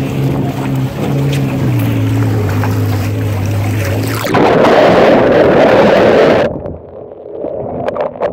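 Personal watercraft engine running at low speed with a steady hum, its pitch dropping slightly under two seconds in. About four seconds in, a loud rushing noise takes over for about two seconds and cuts off suddenly.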